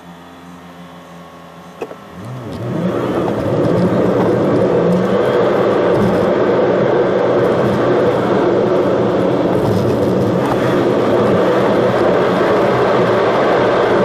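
Car idling quietly at a stop, a single click shortly before two seconds in, then the car pulls away: engine note rises as it accelerates, and engine and road noise build to a loud, steady drone, heard from inside the cabin.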